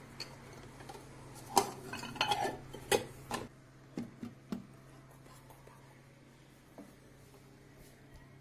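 A dish and utensils clattering as a cooked dish is lifted out of a microwave oven and handled: a series of sharp clinks and knocks between about one and a half and four and a half seconds in. After that only quiet room tone with a steady low hum remains.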